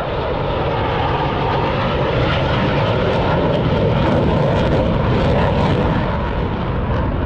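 Jet noise of a Dassault Mirage 2000D fighter flying past: a loud, steady rush that swells about four seconds in and eases slightly near the end.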